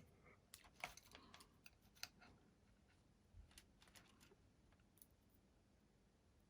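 Near silence with faint scattered clicks and light taps of small-part handling at a workbench, clustered in the first two seconds and a few more around four seconds in.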